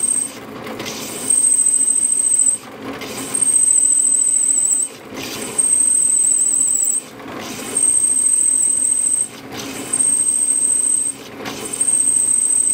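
Diamond-coated core bit on a drill press, running at 850 rpm, cutting into water-cooled jade in short pecks: a high squeal each time the bit is pressed in, about six times, every two seconds or so. Between pecks it drops back to the plainer sound of the spinning bit as it is let off so the bit can cool and water can reach the cut.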